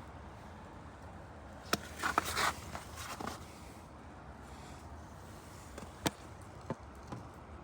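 Plastic door trim being handled and pried: a few sharp clicks, with a short burst of scraping and rattling about two seconds in, over faint background hiss.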